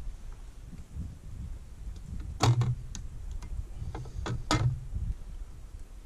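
Fishing tackle and a plastic bait boat being handled: two sharp clicks about two seconds apart, each with a brief low buzz, over a low wind rumble.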